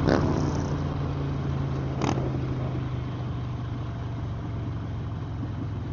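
Harley-Davidson Sportster's V-twin engine running steadily while cruising, heard from the rider's seat, with a short click about two seconds in.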